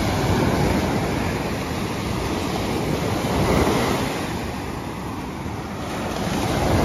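Sea surf breaking and washing up a sandy beach, the rush swelling and easing about every three seconds.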